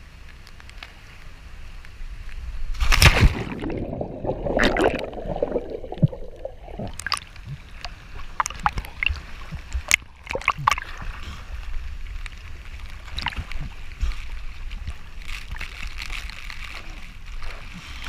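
Water sloshing and splashing around the camera as it is dipped into a rocky pool below a waterfall. There is a loud splash about three seconds in, then a few seconds of muffled gurgling, then scattered splashes over a steady rush of water.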